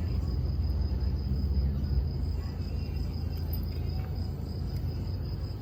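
Steady high-pitched drone of insects such as crickets, with the low rumble of passing road traffic that fades about two seconds in.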